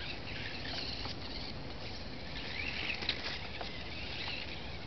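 Micro RC off-road car running on a dirt track: a high, wavering buzz from its small motor that rises and falls with the throttle, with a few light clicks.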